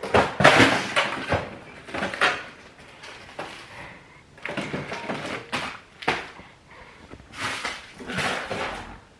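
Household handling sounds: a series of short knocks, bumps and rustles, like cupboards and drawers being opened and shut and things moved about.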